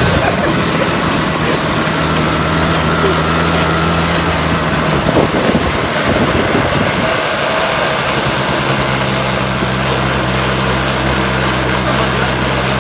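Quad bike (ATV) engine running while riding over sand, with wind rushing over the microphone. The engine note holds steady, fades out around five seconds in, and comes back steady from about eight seconds in.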